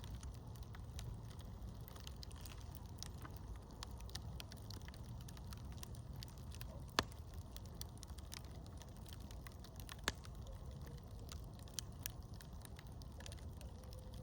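Campfire crackling: scattered small ticks with a few sharper pops, the loudest about seven seconds in and another about ten seconds in, over a low steady rumble.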